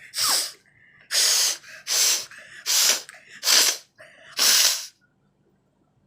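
A woman forcefully blowing her nose without a handkerchief: six short, airy blasts of breath out through the nose, a little under a second apart, stopping about five seconds in. Her nose is dry, and little more is coming out.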